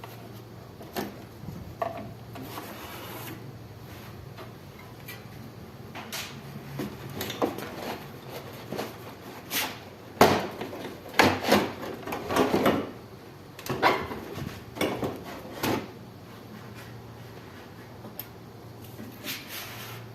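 Scattered clicks, knocks and rubbing of hands working on the parts of a window air conditioner as it is taken apart, busiest about halfway through.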